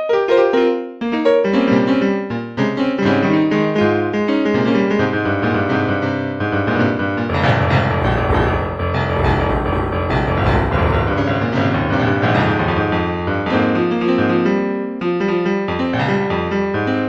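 Piano music: a solo piano playing a flowing run of notes, swelling into a fuller, denser passage with deep bass notes in the middle before thinning out again near the end.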